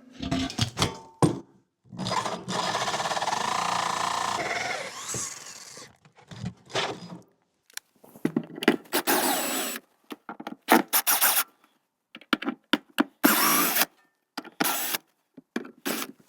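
Power drill fitted with a large hole saw, cutting the vent hole through the cabin wall. It runs steadily for about two and a half seconds near the start, then comes in several short, separate bursts.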